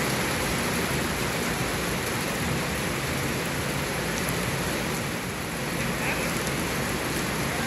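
Heavy rain falling on the water of an outdoor swimming pool and its deck, a steady even hiss.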